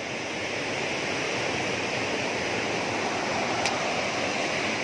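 Rushing water: a steady, even rush that grows slightly louder over the first couple of seconds, with one faint click about three and a half seconds in.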